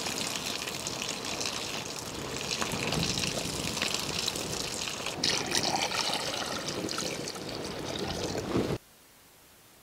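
Water pouring and trickling into a pot of hard-boiled eggs: cold water going in to cool them so the shells peel off cleanly. It cuts off suddenly near the end.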